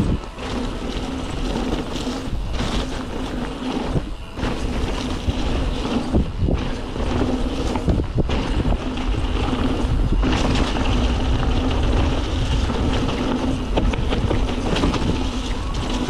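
Mountain bike descending a rough enduro trail: wind buffeting the bike-mounted camera's microphone over a rumble of tyres and frame, with repeated knocks as the bike rattles over rocks and roots.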